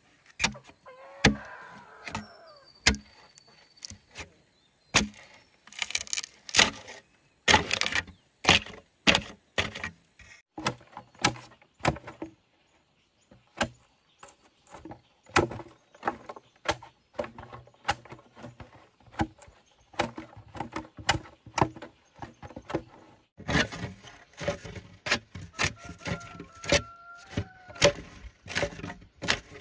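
Irregular knocks and clatters of hand work, some in quick runs and some spaced out, with a short pause a little before the middle.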